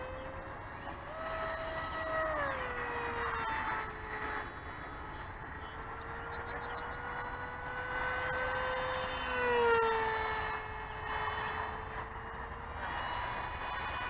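RC model airplane's motor and propeller whining as it flies overhead, the pitch rising and falling with throttle and as it passes; a sharp drop in pitch about nine and a half seconds in as it goes by, loudest just after.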